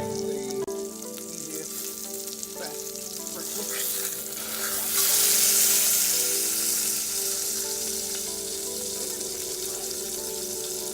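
Food sizzling as it fries in a hot pan, the sizzle swelling loudest about halfway through, with background music underneath.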